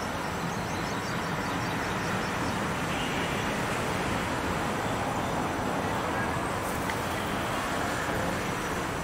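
Steady background rushing noise, like distant traffic, with no distinct events.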